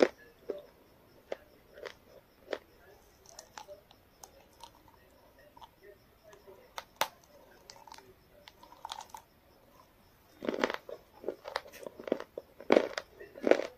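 A person biting and chewing food up close to the microphone: scattered crisp clicks and crunches, with louder bouts of chewing about ten seconds in and again near the end.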